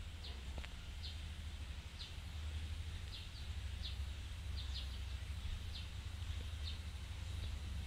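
Small birds chirping in short, high, falling notes, about one or two a second at uneven spacing, over a steady low rumble.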